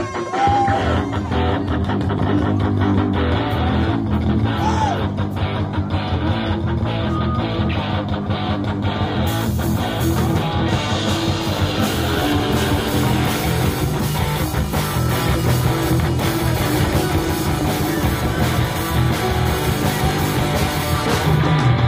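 Live band playing instrumental rock with a prominent electric bass line over keyboards and drums. The sound grows fuller and brighter a little before halfway through.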